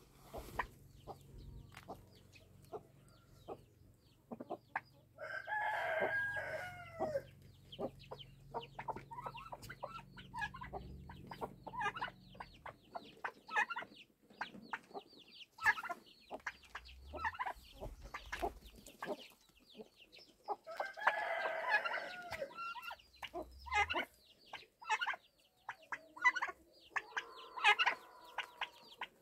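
Chickens clucking throughout, with a rooster crowing twice, about six seconds in and again some fifteen seconds later, each crow about two seconds long.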